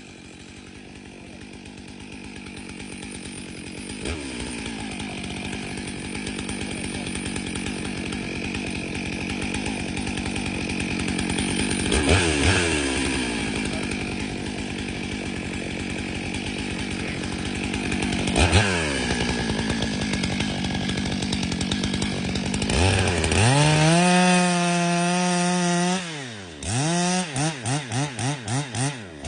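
Stihl MS 661 C 91 cc two-stroke chainsaw at full throttle cutting through a log, its engine note held down under load and briefly rising and falling twice. Near the end it comes free of the cut, revs up high, then is blipped in quick on-off bursts of about four a second.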